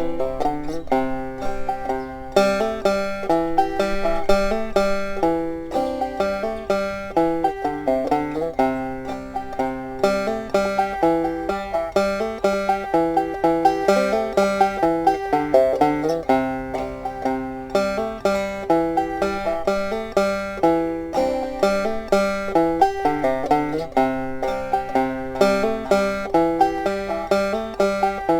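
Five-string banjo played clawhammer style: a steady, driving stream of plucked notes with a bouncy rhythm.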